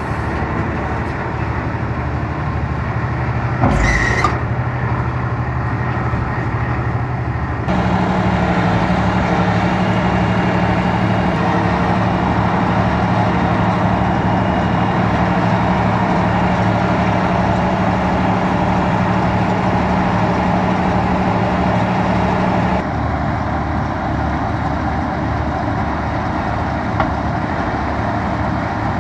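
Tractor engine running and driving a SuperMix feed mixer wagon as it discharges mixed feed from its side conveyor: a steady machine rumble. About eight seconds in the engine note steps up and gets louder, dropping back about twenty-three seconds in, with a brief hiss about four seconds in.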